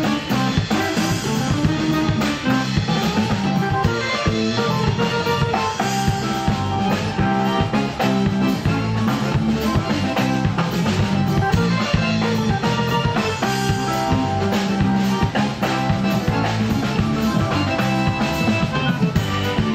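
A live band playing an instrumental tune with a steady beat: a Gibson archtop electric guitar, accordion, drum kit and electric bass.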